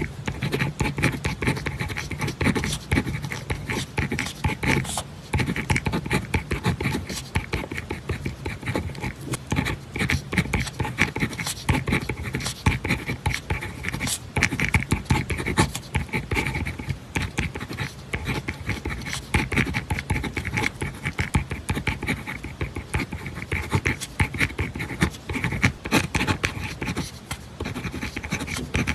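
Pen writing on paper: a continuous run of quick scratchy strokes, with no pauses.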